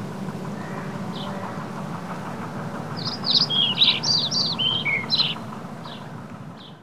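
Birds chirping, a quick cluster of short downward-sweeping chirps about three seconds in, over a steady low rumble of outdoor ambience. The sound fades out at the end.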